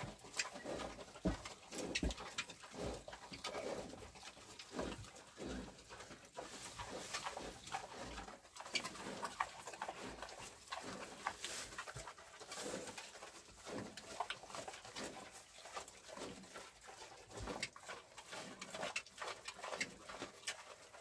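Vietnamese pot-bellied pigs eating fresh alfalfa: irregular chewing and munching with rustling of the stems, and low grunts now and then.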